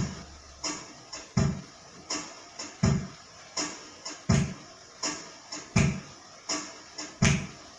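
Background music from an electronic keyboard: a slow, even drum beat, a deep thump about every one and a half seconds with lighter clicks in between.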